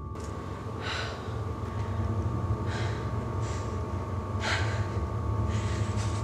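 A woman breathing hard in short, sharp breaths, about five of them a second or so apart, over a steady low hum.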